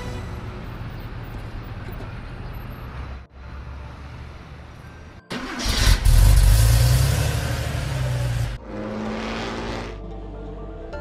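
Car engine starting and revving loudly, rising in pitch about halfway through. It then drops back to a lower, steady running hum, with background music before and after.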